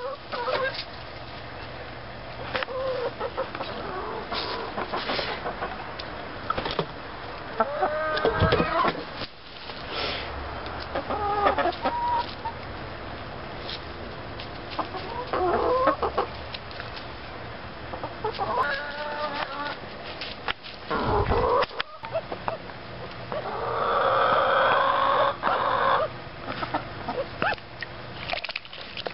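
Hens clucking and giving several drawn-out calls as they compete for food, with sharp pecking taps throughout. A deep thump comes about two-thirds of the way in, and a louder, harsh, noisy stretch comes a few seconds before the end.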